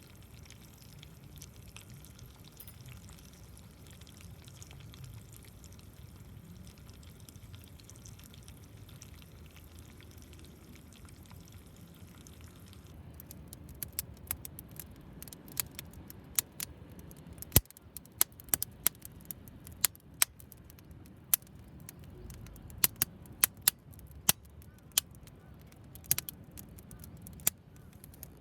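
Cooking over a small wood fire: a soft steady hiss, then about halfway through a run of irregular sharp pops and crackles.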